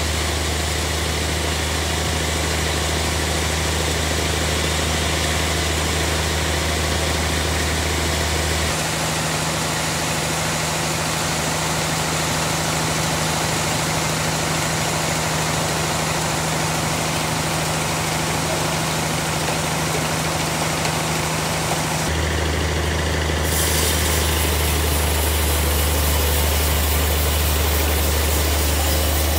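Sawmill band saw machinery running steadily: a constant low hum with a steady tone above it under an even mechanical noise. The low hum drops away about nine seconds in and comes back about twenty-two seconds in.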